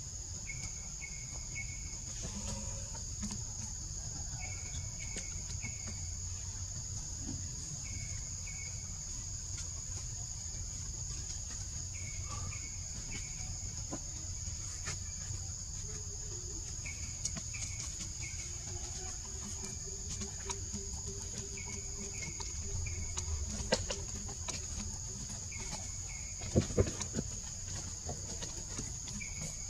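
Tropical forest ambience: a steady high-pitched insect drone with short chirps repeated in small groups every second or two. A long low tone runs through the middle, and a few sharp knocks near the end are the loudest sounds.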